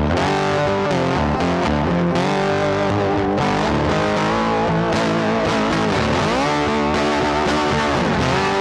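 Background music led by an electric guitar with some distortion, playing steadily, with pitch bends in the melody.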